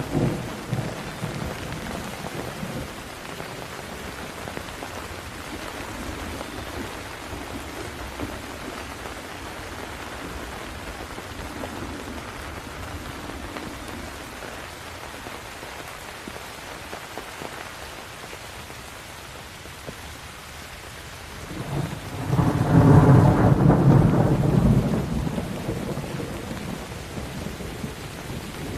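Steady rain with thunder. A rumble is dying away in the first couple of seconds, and about three-quarters of the way through a loud peal of thunder swells, rolls for a few seconds and fades, the loudest sound here.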